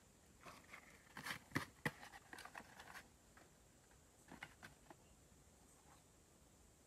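Dry sticks and twigs being handled: a run of sharp clicks and clatters about a second in, two of them much louder, then a few lighter clicks around four seconds in, over near silence.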